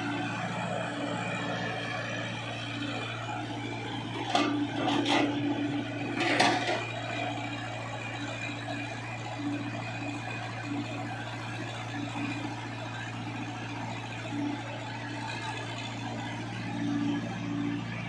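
Tata Hitachi EX70 excavator's diesel engine running steadily as it digs, with three sharp knocks about four to six seconds in as the bucket works the mud and broken concrete.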